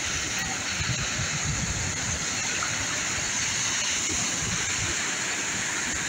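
Ocean surf: small waves breaking and washing up the sand around wooden pier pilings, a steady rush of water.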